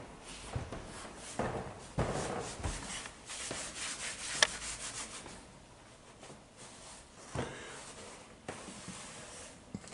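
Handling noise from a handheld camera: irregular rubbing and scuffing against the microphone, with one sharp click about four and a half seconds in.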